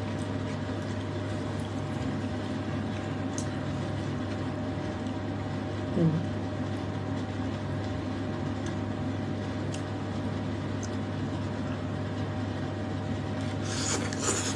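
A steady low electrical hum, with a brief murmur of a voice about six seconds in and slurping of noodles near the end.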